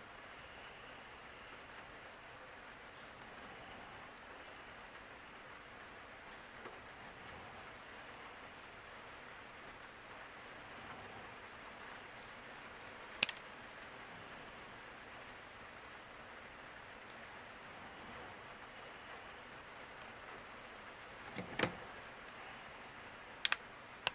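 Faint steady hiss broken by a few sharp clicks: one about halfway through, a knock near the end and two quick clicks just after it, typical of small plastic parts being handled and set down on a work surface.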